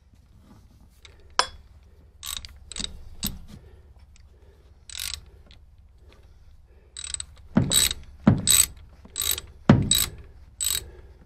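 Socket ratchet wrench clicking in short strokes as it runs down the nut on an alternator terminal. A few scattered strokes in the first half, then a quicker run of about seven louder strokes in the last four seconds.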